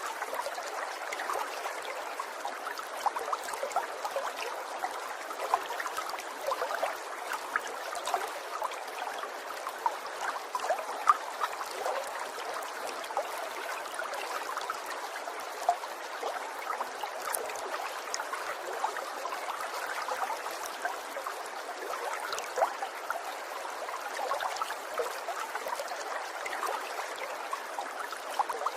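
Water trickling steadily, with many small bubbling plinks and splashes over an even gurgle.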